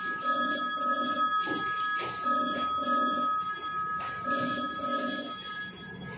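A phone ringtone ringing in pairs of short rings, each pair repeating about every two seconds over a steady high tone, with a few brief clatters.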